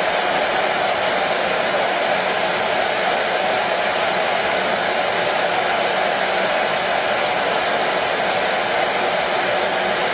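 A washing machine running with a steady, unchanging rushing hum, no knocks, clicks or changes in pace.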